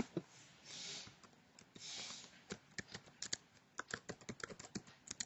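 Faint computer-keyboard keystrokes as a password is typed into a web form: a run of single key clicks that starts about two and a half seconds in and comes faster near the end, after two soft hisses.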